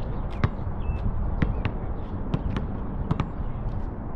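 Basketball bouncing on an asphalt court: several sharp bounces, some in quick pairs, over a steady low background rumble.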